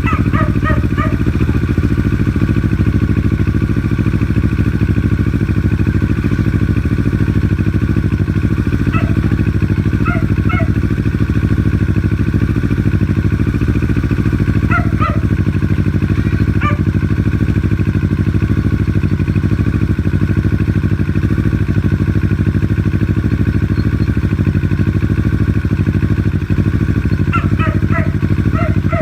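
2018 Kawasaki Ninja 650's parallel-twin engine idling steadily through a Yoshimura R77 full exhaust, with a few short higher-pitched sounds over it at intervals.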